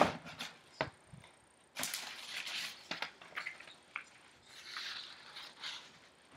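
A cardboard shoebox set down with a sharp knock, then the lid handled with a few light taps, followed by paper rustling as tissue and folded papers inside the box are moved and pulled out.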